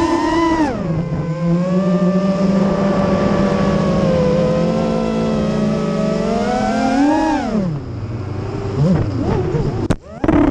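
FPV racing quadcopter's motors and propellers whining in flight, heard from the onboard camera, the pitch rising and falling with the throttle. It climbs sharply just after the start, holds steady, climbs again about seven seconds in, then falls and wavers, cutting out briefly near the end before a sudden loud burst.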